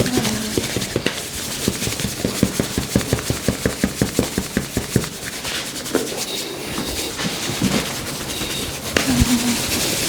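Hands massaging a patient's skin: rubbing strokes, with a run of quick, even percussive strokes, about five a second, starting about a second in and lasting a few seconds.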